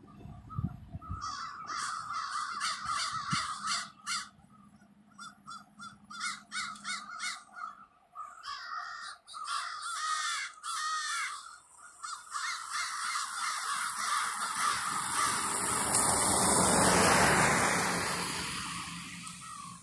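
A roosting flock of American crows cawing, many birds calling over one another in rapid runs of harsh caws. In the second half a broad rushing noise swells to a peak and fades away, drowning the calls.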